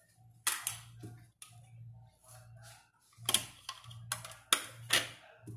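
Several sharp clinks and knocks of a ceramic plate and a kitchen knife being handled and set down on a marble countertop, over a steady low hum.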